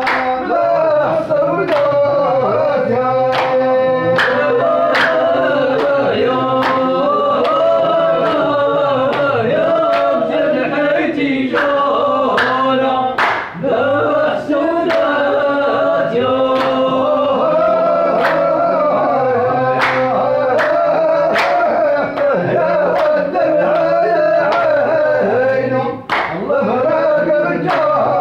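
A group of men singing a traditional folk song together, voices in unison, with hand claps keeping the beat. The singing breaks off briefly twice.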